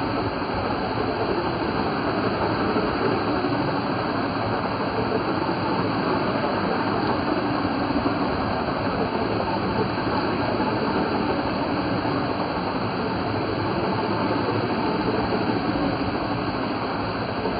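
Steady rush of water, with a radio-controlled Baja Bug churning through shallow standing water and throwing up spray as it spins.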